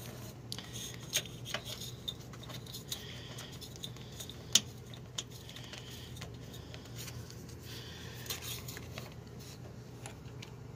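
Light clicks and rubbing of metal and plastic parts as a power steering cooler and its lines are worked into place by hand, with one sharper click about four and a half seconds in, over a low steady hum.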